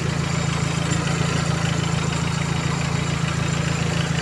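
Toyota Corolla 2E 1.3-litre carbureted four-cylinder engine idling steadily.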